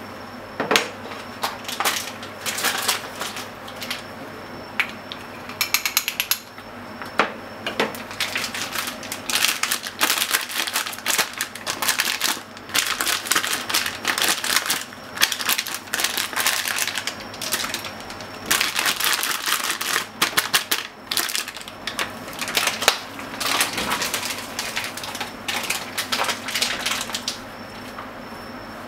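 Dense, irregular clicking and crackling in spells as seasoning is added by hand to a plastic measuring cup of water, stopping near the end.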